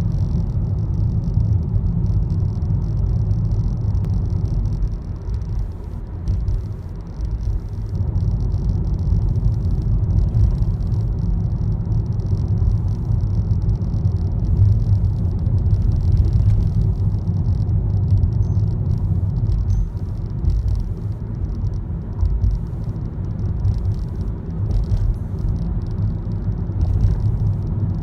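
Rattling from a Honda Step WGN (RP4 minivan), a steady 'karakara' over the car's low rumble, which the owner presents as an abnormal noise.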